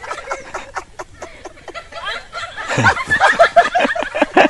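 Hearty laughter. A few breathy snickers give way, after about two and a half seconds, to a quick string of falling 'ha-ha-ha' bursts.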